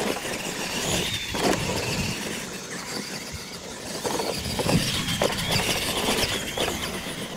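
Radio-controlled monster trucks racing over dirt: a high, wavering whine from their motors and gears over a steady din of tires on dirt, with a few short knocks as they hit the ramps.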